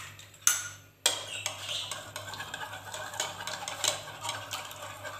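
Metal spoon beating two raw eggs in a bowl: two single knocks, then from about a second in a quick, steady run of clinks as the spoon whisks against the bowl.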